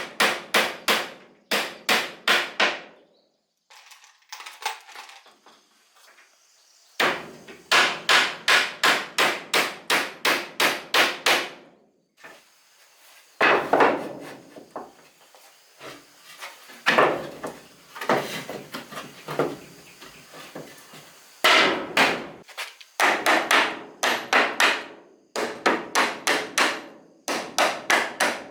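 Hammering on wood in runs of quick, even blows, about three a second, broken by short pauses.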